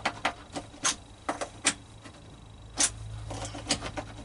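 Scattered sharp clicks and knocks of a rusty metal part being worked by hand. It will not work, seemingly because it is too rusty.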